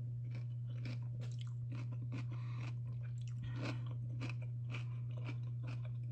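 A person chewing a dill pickle close to the microphone: irregular crisp, wet crunches and chewing, over a steady low hum.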